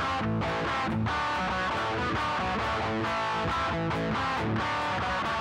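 Soundtrack music led by guitar.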